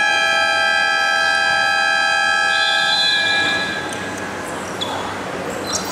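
Basketball scoreboard buzzer sounding one long, steady blare of several tones at once, cutting off about three and a half seconds in. A couple of faint knocks follow near the end.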